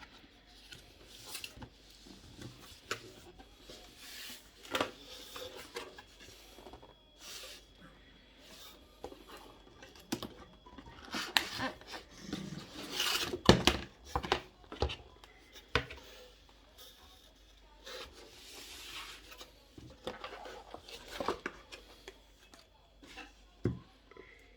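A box and its packaging being handled and opened by hand: scattered rustles, scrapes and taps, with a louder cluster of handling noises about halfway through.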